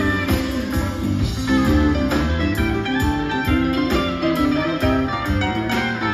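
Live rock band playing, with electric guitars over bass guitar, drums and keyboards and a steady beat.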